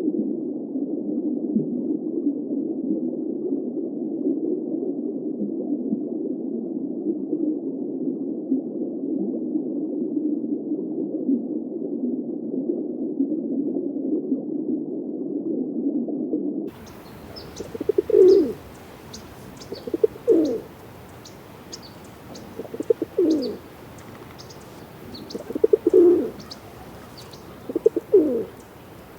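A steady low rushing noise that cuts off suddenly about 17 seconds in. Then a dove cooing five times, a short low coo every two to three seconds, with faint high chirps of small birds behind it.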